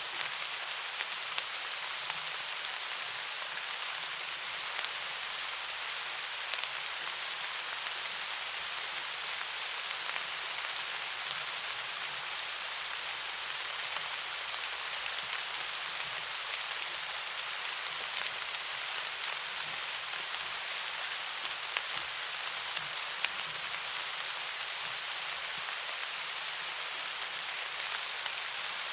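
Steady rain falling in an even hiss, with scattered faint ticks of individual drops.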